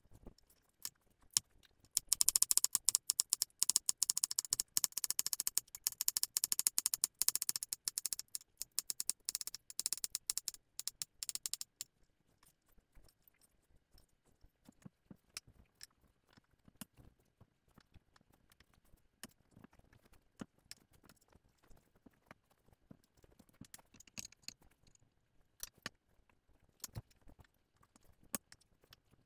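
Knife slicing celery stalks on an acacia end-grain wood cutting board: a quick run of crisp chops for about ten seconds, then only faint scattered taps and knocks.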